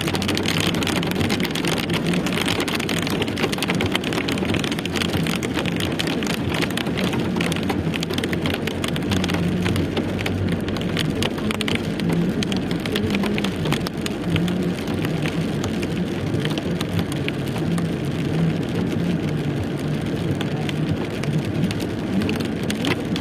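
Steady rain falling, with many drops ticking on hard surfaces and a low hum underneath.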